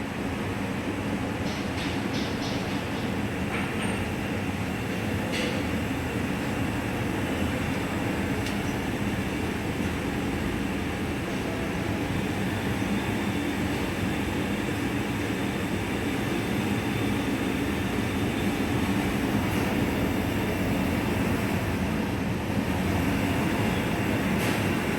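LPG gas burner burning steadily with a continuous rushing noise, fed by the gas let through the gate valve. There are a few faint clicks in the first few seconds.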